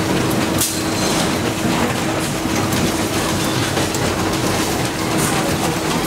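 Steady running noise of motor-stator production-line machinery. A constant hum runs under it, with a few sharp clicks and knocks.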